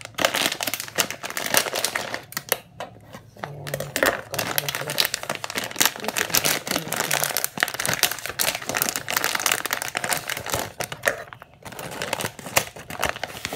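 Plastic bag and foil pouch of dried soup ingredients crinkling as they are handled and opened: dense rustling and crackling, with short lulls about three seconds in and again near the end.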